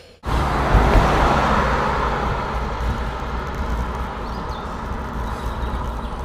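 Road traffic noise heard while cycling along a road, with a steady low rumble. It cuts in abruptly just after the start, is loudest about a second in, and then eases slightly.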